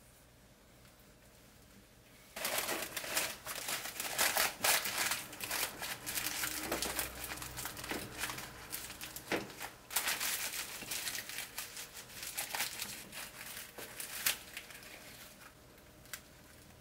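Sandwich paper crinkling and rustling as a toasted sandwich is wrapped in it by hand. It starts about two seconds in with irregular crackles and sharp crinkles, and dies away near the end.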